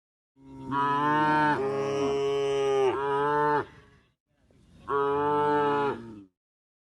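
Cow mooing twice: a long, loud moo of about three seconds, then a shorter one of about two seconds.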